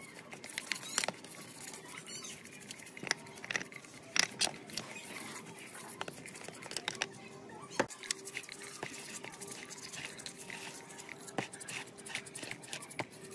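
A bristle brush scrubbing rusty steel gears and a shaft in a tray of cleaning liquid: wet swishing and sloshing broken by irregular sharp clicks and taps as the metal parts knock against each other and the tray.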